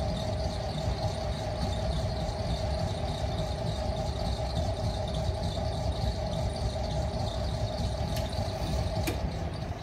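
Potter's wheel spinning, its drive giving a steady high squeal over a low rumble.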